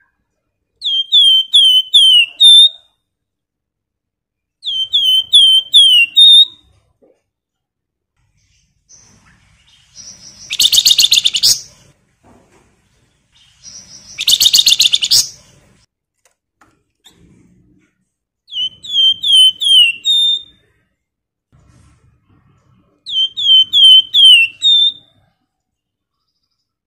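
Flamboyan (wergan Jawa) songbird singing in short phrases of four or five quick downslurred whistles ending on a higher note, four times over. Twice, near the middle, come louder harsh rattling chatters, the churring 'ngebren' and 'crecetan' calls of this bird.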